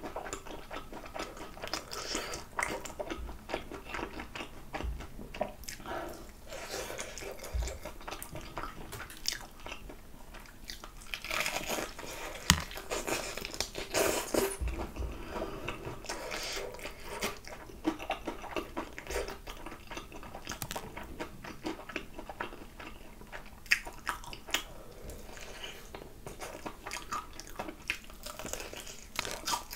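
Crispy battered fried chicken drumstick being bitten and chewed, with sharp crunches of the fried crust throughout.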